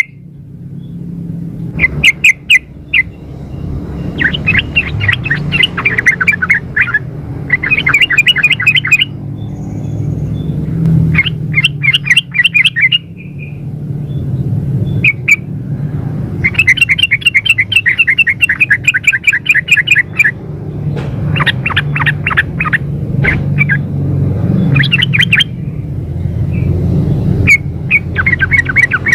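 Female yellow-vented bulbul (trucukan) calling for a male: repeated bouts of rapid chattering notes, each bout one to three seconds long with short gaps between, over a steady low hum.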